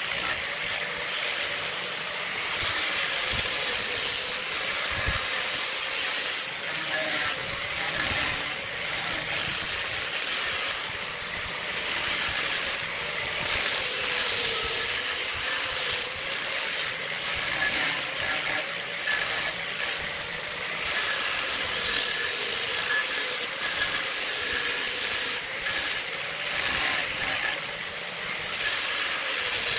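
Bosch angle grinder with a sanding drum running steadily against a wooden vase turning on a lathe: a motor hum whose pitch wavers slightly, over a continuous hiss of abrasive on wood.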